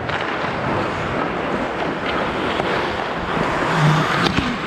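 Ice hockey skate blades scraping and carving on rink ice close to the microphone, a steady hiss with a few sharp clicks.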